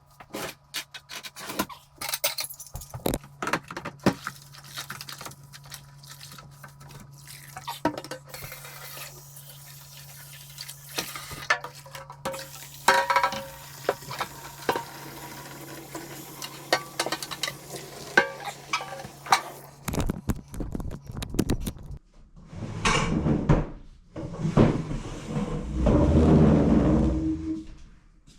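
Dishes being washed by hand in a kitchen sink: many light clinks and knocks of dishes, then tap water running in two louder spells near the end.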